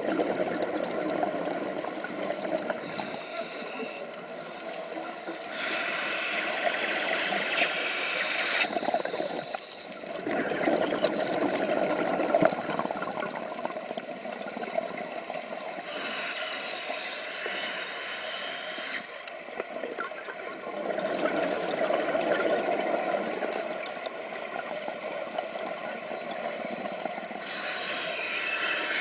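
Scuba diver breathing through a regulator underwater. Three times, about eleven seconds apart, comes a hiss of about three seconds as air is drawn in. Between them come stretches of bubbling as the breath is let out.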